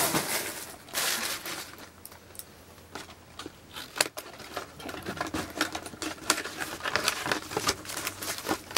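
Paper stuffing and plastic wrapping crinkling and rustling as they are handled and pulled out of a new handbag, with small taps and clicks of handling. The loudest rustles come right at the start and about a second in.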